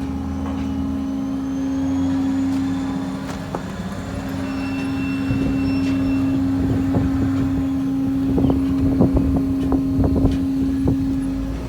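Sawmill machinery running with a steady, even hum over a low rumble, with a run of knocks and clatter in the second half.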